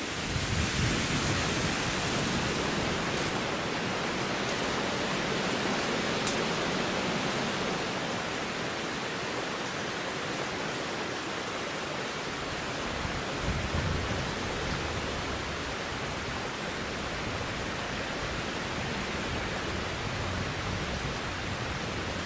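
Steady rush of flowing stream water, an even noise with no breaks.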